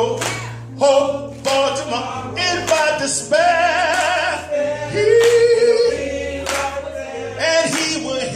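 Gospel choir singing with a male lead on a microphone, over sustained low bass notes that change about every second; a long held note with vibrato comes about five seconds in.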